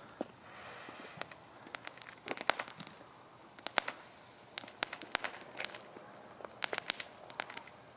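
Small consumer fireworks crackling and popping: irregular sharp snaps, some coming in quick clusters.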